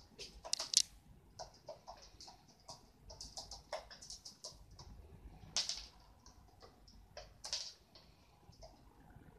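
Pigeons pecking seed off a wooden floor: a run of quick, irregular taps, with a few louder knocks about a second in and twice more later.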